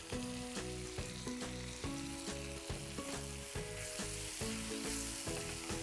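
Chicken pieces frying in ghee in a cast-iron skillet, a steady sizzle, while a spoon stirs and turns them.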